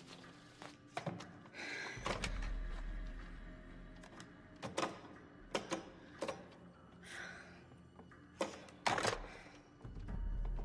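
Sharp clicks and knocks of a wall-mounted telephone handset and its hook switch being handled and worked, about a dozen in irregular bunches, with a few breathy sounds between them.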